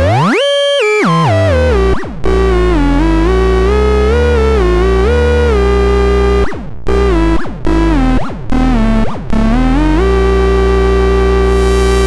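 Hand-built SENZATRON battery-powered personal synthesizer playing a single electronic tone. It sweeps up quickly at the start, then wanders through stepped and sliding pitches, broken by about five sudden short swoops down in pitch. It settles on one held note for the last couple of seconds.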